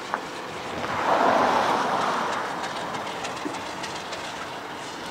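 Diesel locomotive running light engine, a steady rail noise with a sharp click just after the start. About a second in a rushing noise swells, then fades over the next two seconds.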